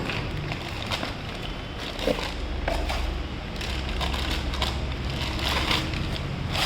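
Irregular scraping and clicking as engine parts, the piston and its rings, are handled, over a low steady hum.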